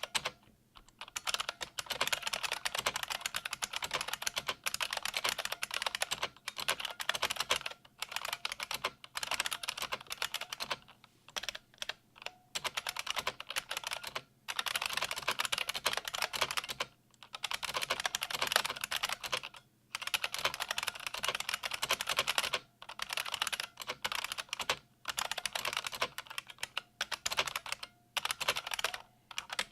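Fast typing on a 1988 IBM Model M122 keyboard: loud buckling-spring key clicks in rapid runs of a few seconds, with short pauses between them.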